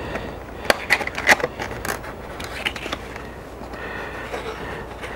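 A model railcar's cardboard-and-plastic display box being handled, with a quick cluster of sharp clicks and rustles from about a second in, then quieter handling.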